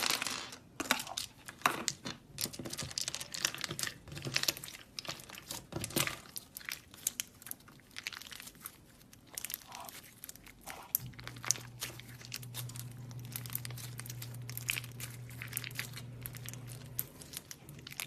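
Slime being squeezed and poked by hand, giving irregular crackling and clicking pops. A steady low hum joins in for several seconds near the end.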